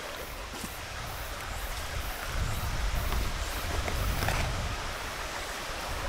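Valley stream running steadily, with faint rustles and clicks of a canvas tote and a mesh bag being handled. A low rumble swells in the middle and fades again.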